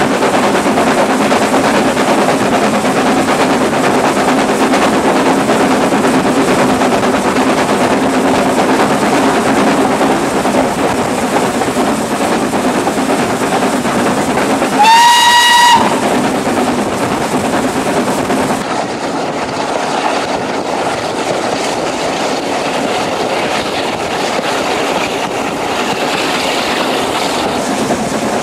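Steam train running, heard from just behind the locomotive: a steady rumble and clatter from the wheels and train. About halfway through the locomotive's steam whistle sounds once, a single clear note that rises briefly then holds for about a second; a few seconds later the running sound becomes a little quieter.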